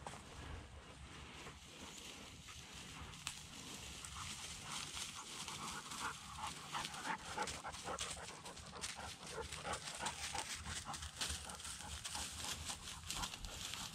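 Bird dog panting as it works through dry cover, with brush crackling and rustling around it, growing louder toward the end.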